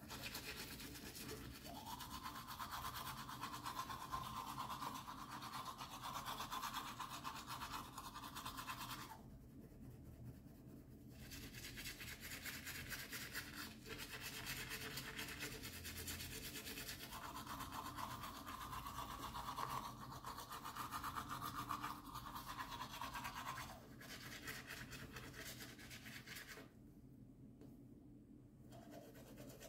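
Teeth being brushed with a toothbrush: a rapid, continuous scrubbing, with short breaks about nine seconds in and again near the end.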